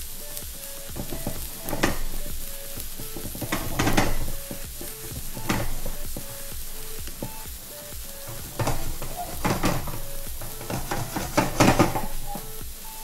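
A spoon or fork scraping and stirring through rice in a pot to fluff it, in about six irregular clattering strokes, over a steady sizzle of food frying in a pan.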